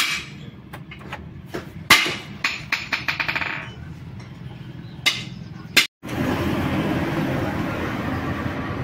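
Sharp metal knocks and clinks of tools and engine parts being handled, with a quick run of about a dozen ringing clicks midway. After a brief break there is a steady background noise.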